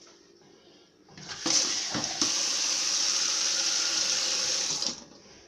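Water running steadily from a kitchen tap for about three and a half seconds, with a couple of knocks as it starts, then turned off.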